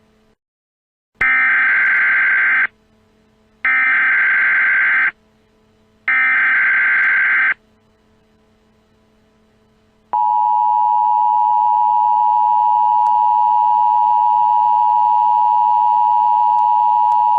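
Emergency Alert System activation tones: three identical SAME header data bursts, each about a second and a half long with short gaps between. About ten seconds in, the steady two-tone EAS attention signal starts. Together they mark the start of an emergency alert broadcast.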